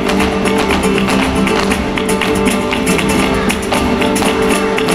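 Live flamenco garrotín: acoustic guitars strumming steady chords, cut through by fast, sharp percussive strikes in rhythm.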